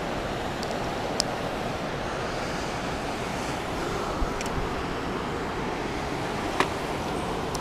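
Steady rush of river water running past rocks, with a few light clicks, the loudest near the end.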